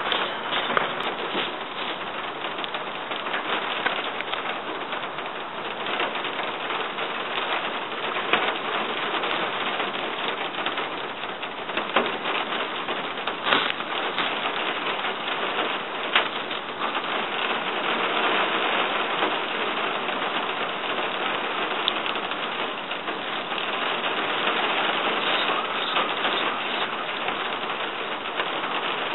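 Steady rain falling on dry grass and leaf litter: a constant hiss with scattered sharper drop ticks.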